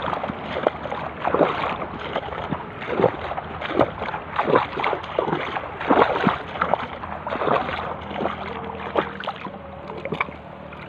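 Shallow sea water splashing and sloshing around the legs of someone wading, in quick uneven strokes about two a second that ease off in the last couple of seconds.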